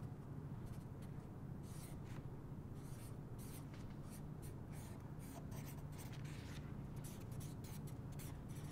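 Black marker drawing on a sheet of paper: many short, irregular scratchy strokes, faint, over a low steady room hum.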